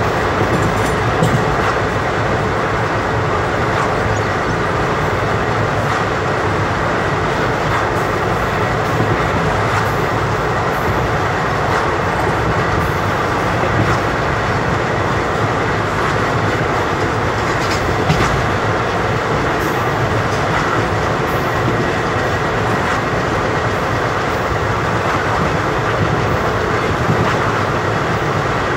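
Indian Railways express passenger coach running at speed, heard from inside at a barred window: a steady rush and rumble of wheels on rails with scattered clicks.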